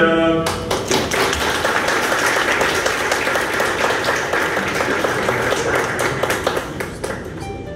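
Small audience applauding, a dense patter of hand claps that tails off near the end.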